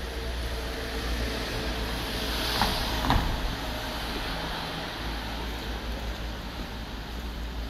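Street traffic: a vehicle passes close by, its noise swelling and fading, with two sharp knocks about half a second apart as it goes past.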